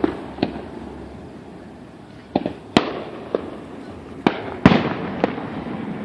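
Aerial fireworks shells bursting at a distance: about nine sharp bangs in uneven clusters, each trailing off in a long echo. The loudest come near the middle and about two-thirds of the way in.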